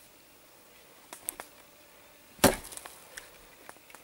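Axe chopping a wooden branch laid across a chopping stump: one sharp strike about two and a half seconds in, with a few faint knocks before it.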